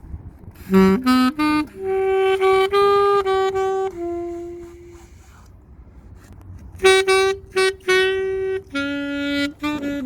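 Alto saxophone played solo without accompaniment: a phrase of short and held notes, a pause of about a second and a half, then a second phrase of held notes.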